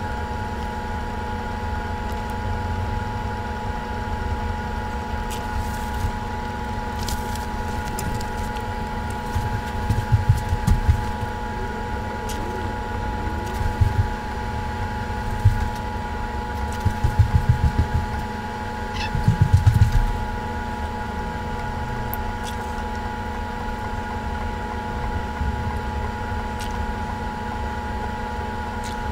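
A steady machine-like hum made of several pitched tones, with bursts of low rumbling in the middle stretch.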